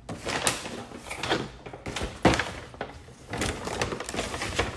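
Plastic takeout containers handled on a table, giving several knocks and clicks, the loudest a little past two seconds in. Near the end a paper bag rustles as a container is pushed into it.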